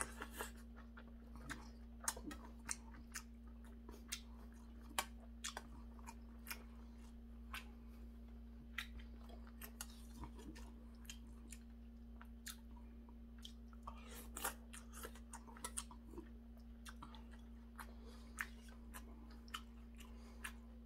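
Close-up eating sounds of a man chewing spoonfuls of seonji-gukbap (ox-blood soup with rice), with scattered sharp clicks and taps of a metal spoon in a stainless-steel bowl. A steady low hum runs underneath.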